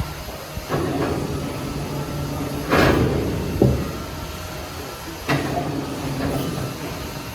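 Sawmill machinery running with a steady low hum, with several sudden knocks and clatters: one about a second in, two close together around three seconds, and one a little past five seconds.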